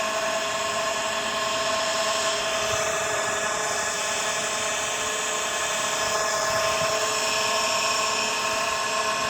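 Electric motor of a well water pressure pump running with a steady whine of several high tones over a hiss, extremely loud and with an abnormal noise.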